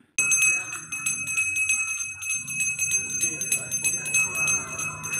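Small brass puja hand bell (ghanta) rung rapidly and without pause, a steady high ringing made of fast repeated strikes, starting suddenly just after the start.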